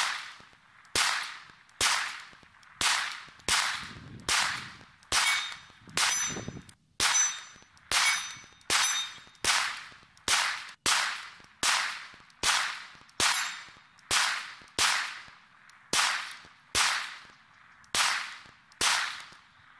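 CZ P10C compact 9mm pistol fired in a steady slow string, about two dozen shots at roughly one a second, each shot trailing off in an echo.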